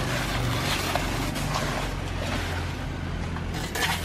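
A steady low motor drone, with fresh banana leaves rustling and scraping as they are handled and cut along the midrib.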